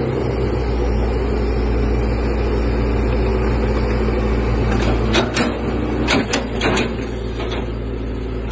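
Hitachi excavator's diesel engine running steadily under work, with a few sharp knocks about five to seven seconds in.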